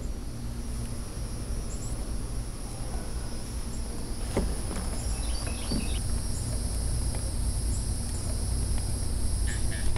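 Outdoor ambience: a steady high-pitched drone of insects such as crickets with a few short chirps, over a steady low rumble. Music comes in near the end.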